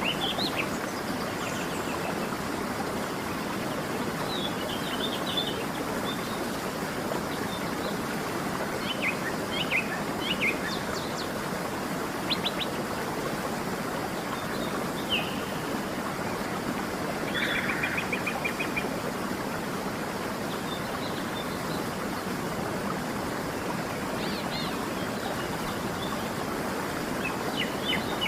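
Steady rush of a waterfall under scattered bird chirps and calls, with a short rapid trill about two-thirds of the way through.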